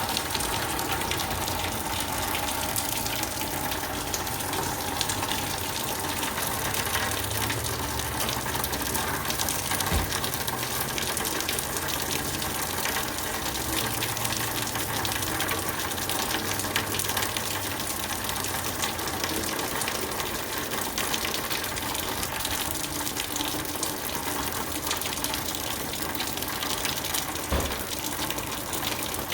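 Heavy rain pouring down in a steady, dense rush.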